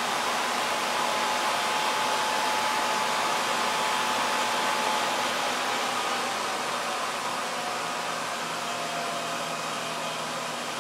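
Treadmill DC motor running steadily on its control board, spinning a wheel on its shaft: a steady whir with a thin whine that drops a little in pitch and gets slightly quieter in the second half, as the motor slows a bit.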